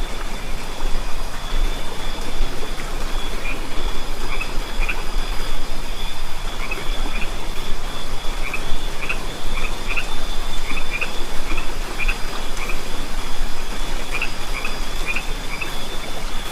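Outdoor ambience of steady rain with a continuous high insect trill and short chirping animal calls repeated irregularly through it, over a low steady hum.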